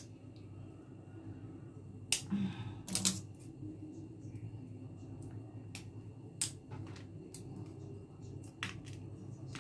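Irregular sharp clicks and cracks as pliers grip and bite at the hard horned shell of a water caltrop (ling kok) nut, the two loudest about two and three seconds in.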